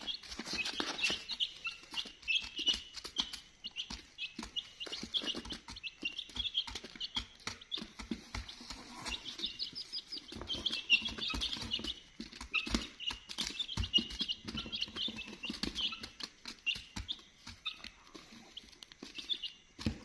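A group of baby chickens peeping continuously, with many short, high, overlapping chirps and scattered light taps among them.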